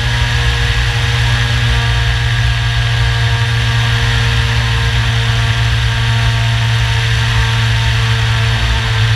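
Electric motor and propeller of a Radian Pro RC glider running at a steady speed, heard from a camera on the plane's nose: a constant hum with a rush of air over it.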